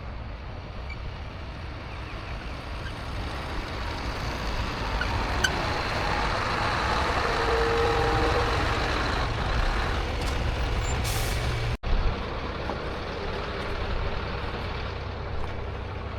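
Hitachi 260 excavator's diesel engine running steadily. A short hiss comes about eleven seconds in, and the sound cuts out for an instant just after.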